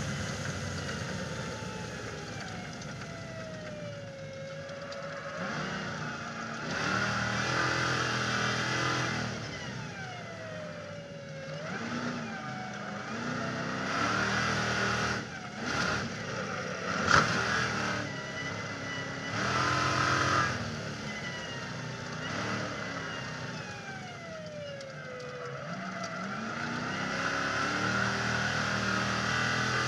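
Stadium Super Truck's V8 engine at racing speed, heard from the roof: its pitch falls as the truck slows for corners and climbs again under acceleration, several times, over a steady rush of wind. A few sharp knocks come about halfway through.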